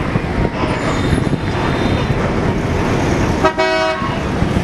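Busy city street traffic running steadily, with a single short vehicle horn honk about three and a half seconds in.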